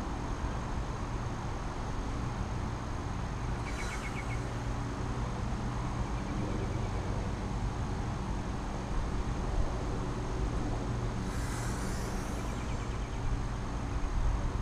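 Steady low outdoor rumble like distant traffic, with two short high chirping sounds, about four seconds in and again around eleven to twelve seconds in.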